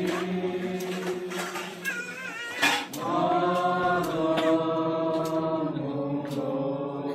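A group of people singing a hymn together, holding long sustained notes. A sharp knock sounds a little under three seconds in.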